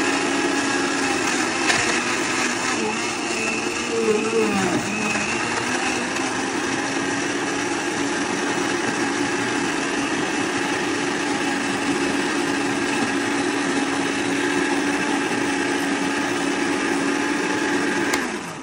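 Hamilton Beach 58175 quiet blender's 800-watt motor running steadily as it blends leafy greens and fruit into a smoothie. Its pitch dips briefly about four seconds in, and it is switched off near the end, the sound dying away.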